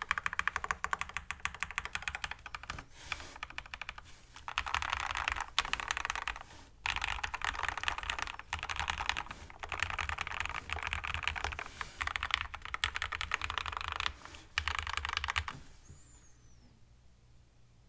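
Typing on a modded Keychron K8 mechanical keyboard with lubed Everglide Aquaking V3 linear switches, a POM plate and foam dampening. Fast keystrokes come in dense runs with short pauses between, and stop near the end.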